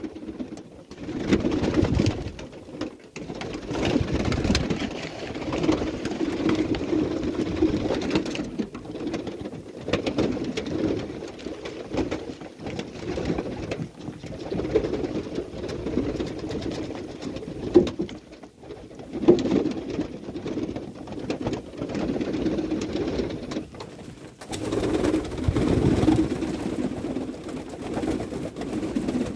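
Domestic pigeons cooing continuously, several at once, swelling and falling, with wing flaps and a few sharp taps as they crowd and peck at corn held in a hand.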